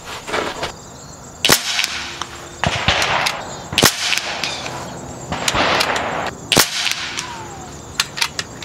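Kral Puncher Jumbo .25-calibre PCP air rifle firing slugs: about three sharp cracks a couple of seconds apart, with rustling handling noise and small clicks between shots.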